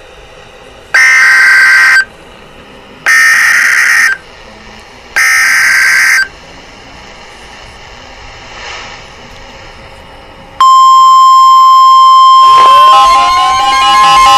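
Emergency Alert System header: three bursts of warbling digital data tones, each about a second long and a second apart. About ten and a half seconds in, a loud, steady single-pitch alert tone starts, with a rising synth glide and music coming in under it near the end.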